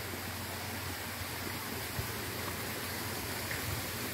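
Steady rush of water from a small waterfall and stream.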